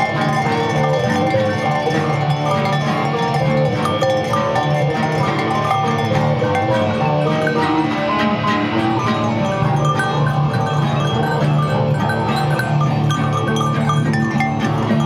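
Live band playing an instrumental passage of a song, loud and steady: electric guitars picking many quick notes over bass and drums.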